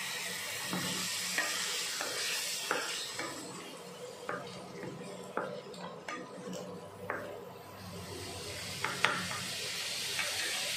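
Masala, fried until its oil has separated, sizzling in a nonstick frying pan while a spoon stirs it and turns boiled eggs, with scattered clicks and scrapes of the spoon against the pan. The sizzle thins out in the middle and picks up again later, and the sharpest click comes about nine seconds in.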